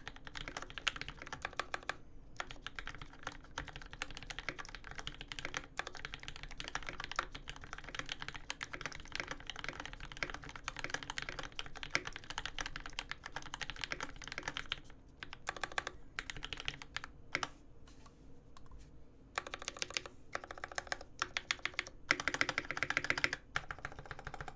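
Typing on a mechanical keyboard with lubed linear switches (Cherry Top Tealios v2) in an aluminium plate and Dolphin v2 case: fast, continuous keystrokes with a few short pauses, and a loud, dense run of keystrokes near the end.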